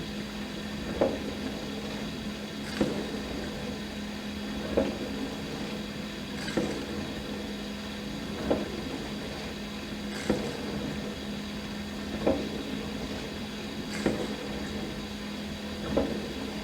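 Dishwasher running its wash cycle: a steady pump hum under a constant wash of water noise, with a short surge repeating about every two seconds.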